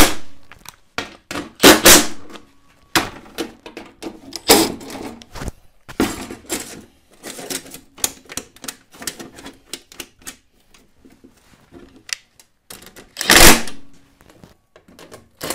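Handling and tightening a stainless-steel sheet-metal throttle plate with a nut driver: an irregular run of metallic clicks and clanks, with a few louder knocks.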